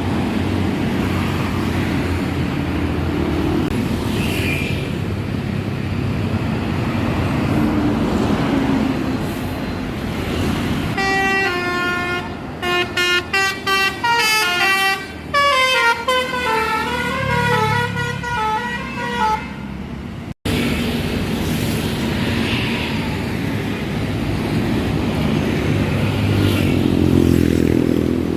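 Bus engines and road traffic running, then about eleven seconds in a Basuri telolet multi-tone bus horn plays a tune of quick stepping notes for about eight seconds before the engine and traffic noise carry on alone.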